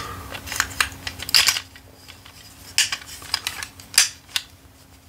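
Hard plastic parts of a transforming robot action figure clicking and clattering as they are twisted and pried apart by hand, in irregular sharp clicks, several close together about a second and a half in and again around three to four seconds in.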